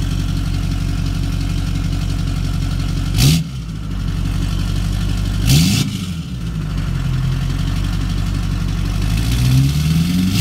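Duramax LB7 6.6-litre V8 turbo-diesel idling through its freshly installed axle-dump exhaust, blipped twice, about 3 and 5.5 seconds in, each short rev bringing a brief rush of noise, then revved up for longer near the end.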